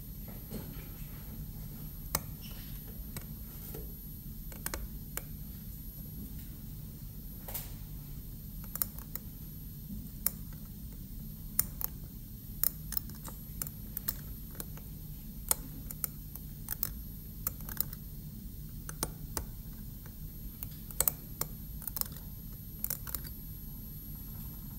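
A steel hand cutting instrument scraping and chipping at a plastic typodont molar during a cavity preparation. It makes irregular sharp little clicks, sometimes in quick clusters, over a steady low hum.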